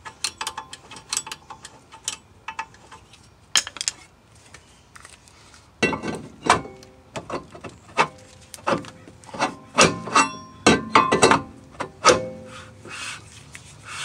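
A flathead screwdriver clicking the parking-brake shoe adjuster wheel on a Hyundai Sonata's rear hub in the first few seconds. From about six seconds in, the new metal brake rotor is fitted over the parking-brake shoes and turned by hand, giving a series of knocks with a ringing metallic tone while the shoes' snugness is checked.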